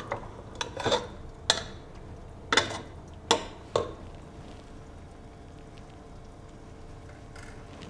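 Metal spoon stirring beef chunks in a metal pot, knocking and scraping against the pot about seven times in the first four seconds, then a faint steady sizzle of the meat and garlic-ginger paste frying in oil.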